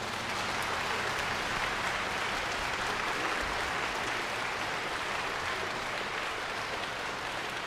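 Concert-hall audience applauding, a dense, steady clapping that eases slightly near the end, as a guzheng piece finishes.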